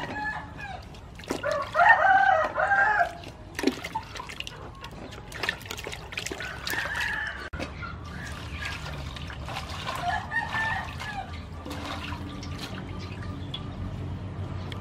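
Water splashing and dripping as hands wash leafy greens in a metal basin. A rooster crows loudly about a second and a half in, with fainter calls later.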